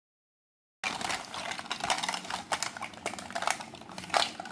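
Close-miked fruit preparation: a rapid, irregular run of crisp clicks, crunches and scrapes, starting about a second in.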